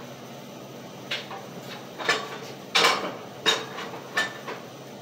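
Irregular metallic clanks and taps as steel pieces of a fabricated panel are knocked and handled, about six strikes over a few seconds, a couple with a brief ringing tone.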